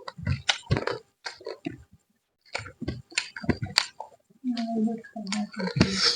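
Close-miked eating sounds: chewing and lip-smacking on chicken curry and rice, in short irregular bursts, with a brief hummed voice sound about four and a half seconds in.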